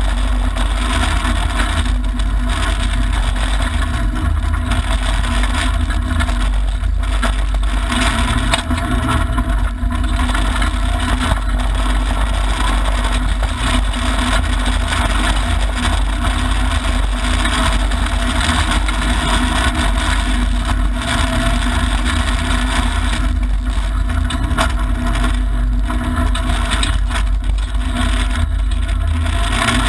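Mitsubishi Lancer Evolution IX rally car at speed on a gravel stage, heard from inside the cabin: its turbocharged four-cylinder engine running under load over a loud, steady low rumble of tyres and gravel against the car.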